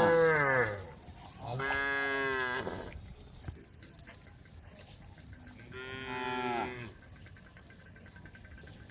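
Cows mooing: a long moo trailing off and falling in pitch at the start, then two more long moos, each a little over a second, with quiet gaps between.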